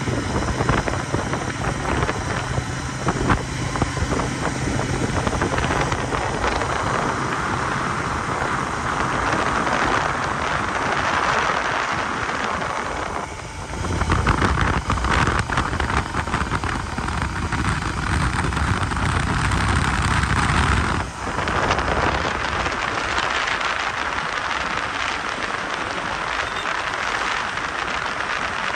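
Royal Enfield Continental GT 650 parallel-twin running at highway cruising speed, almost buried under steady wind rush on the microphone. The sound dips briefly twice, about thirteen and twenty-one seconds in.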